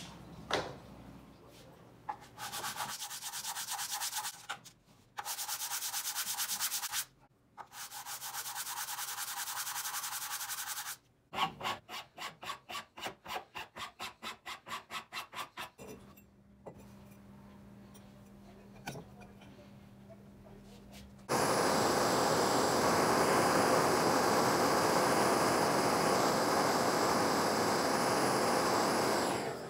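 Sanding in several separate bursts of rubbing strokes, one stretch at about three back-and-forth strokes a second. From about two-thirds of the way in comes a continuous, louder, even sanding noise.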